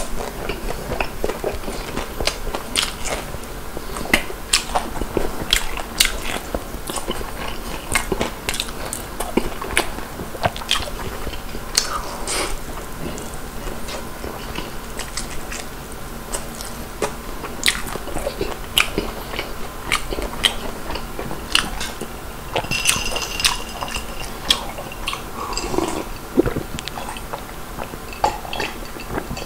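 Close-miked chewing and crunching of crispy fried chicken, with many sharp crackles and wet mouth sounds, then gulps of beer from a glass near the end.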